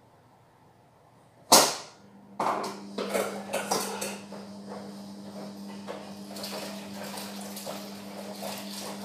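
A sharp knock about a second and a half in, then dishes and utensils clattering and a kitchen tap running into the sink with a low steady hum.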